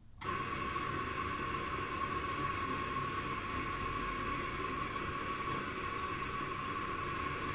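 Electric coffee grinder switching on and running steadily with a whine, grinding very dark-roast beans at a very fine setting.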